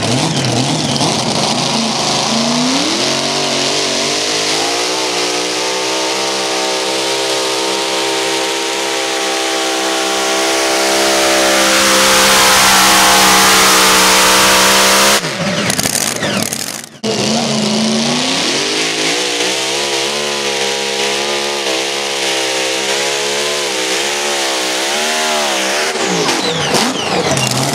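Mini rod pulling tractor engines at full throttle during two pulls. The first revs up and holds a high, steady pitch until it cuts off about halfway. After a short gap a second revs up, holds high with a wavering pitch, and falls off near the end.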